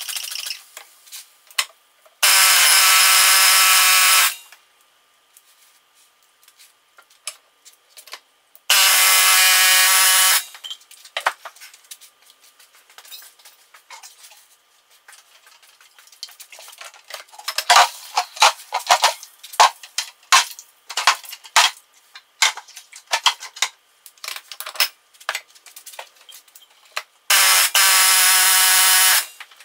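Hand-held power impact tool hammering on a seized transaxle hub in three bursts of about two seconds each, working to break the hub loose. Metal clinks and clanks of tools being handled come between the bursts.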